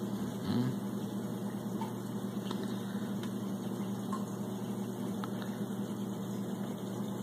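Steady low hum of running aquarium equipment, with a soft bump about half a second in.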